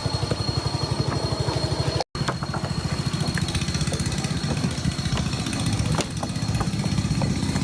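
A combustion engine running steadily with a fast, even low throb, broken by a brief gap about two seconds in.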